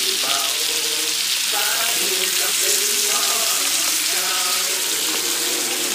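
Food frying in a pan with a steady, loud sizzle. A Thai song with a singing voice plays along with it.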